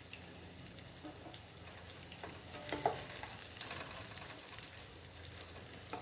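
Beef burger patties frying in hot oil in a pot: a steady sizzle with scattered small pops and crackles.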